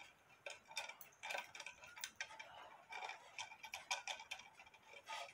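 Faint, light ticking clicks, a few a second and slightly uneven.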